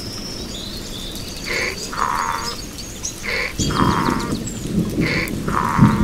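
Donkey braying a repeated hee-haw: three cycles, each a short higher note followed by a longer lower one, about every two seconds. Faint bird chirps are heard at the start, and a low rumble comes in about halfway.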